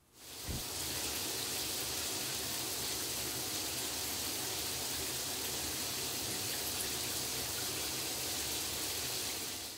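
Water spraying from the body-jet heads of a vertical shower spa panel and splashing on the tiled wall: a steady spray that comes on within the first second and holds even.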